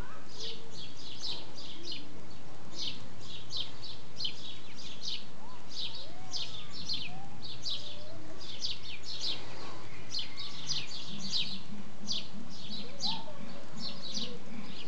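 A chorus of small birds chirping constantly in quick, short, high notes.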